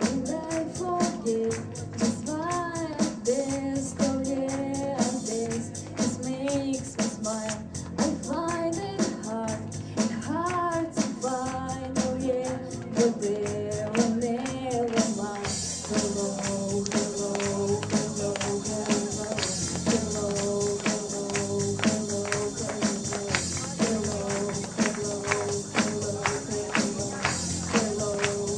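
Live music: a sung melody over a quick, steady percussion beat, which gets brighter and fuller about halfway through.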